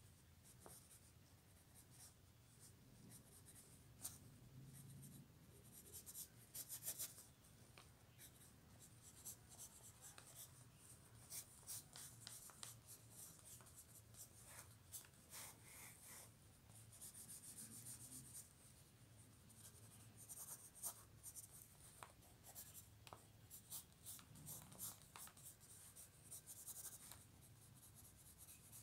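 Faint scratching of pencil lead on paper: many short, quick sketching strokes, some in rapid clusters.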